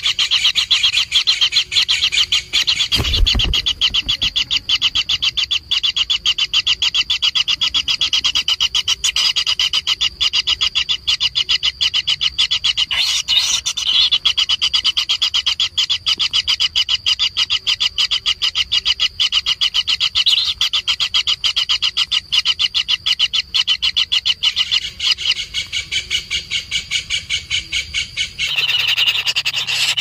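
White-throated kingfisher nestlings begging in their burrow: a rapid, unbroken train of high, rasping calls. There is a single thump about three seconds in.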